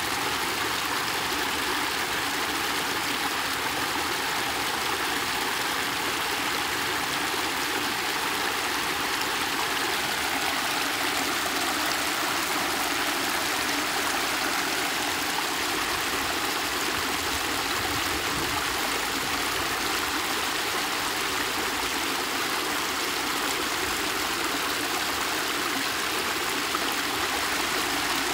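Muddy water pouring over a concrete culvert lip and splashing into a foaming pool: a steady, unbroken rush.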